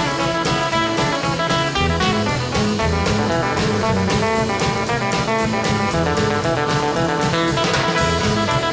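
Upbeat jazzy background music with guitar and a drum kit keeping a steady beat.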